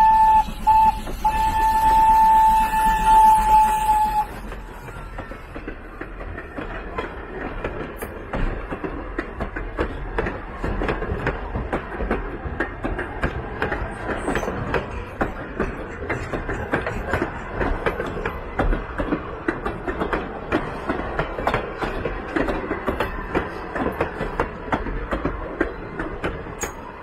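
Steam locomotive whistle on Thomas the Tank Engine, one steady tone, breaking off briefly and then stopping about four seconds in. After it comes the rattle of the train's passenger coaches rolling past, their wheels clicking quickly and unevenly on the rails.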